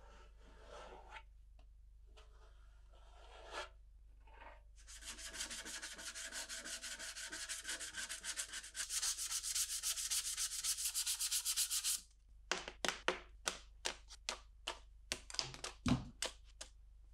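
Filler scraped onto a sheet-metal lantern housing with a plastic spreader, then sanded by hand with sandpaper on a foam block: quiet scraping at first, then fast back-and-forth rasping strokes, slowing to separate strokes near the end with a soft thump.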